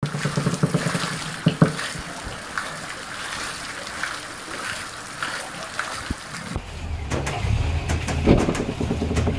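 Water splashing and dripping off a turning wooden water wheel, with small splashes about every half second to a second. After about six and a half seconds a low rumble takes over.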